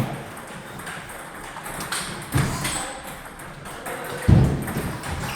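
Table tennis ball knocks: a few sharp pings and taps, with two heavier thuds, one about two and a half seconds in and one just past four seconds in.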